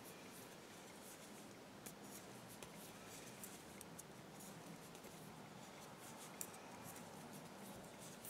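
Faint, irregular light clicking and scratching of metal knitting needles and yarn as stitches are knitted along a row.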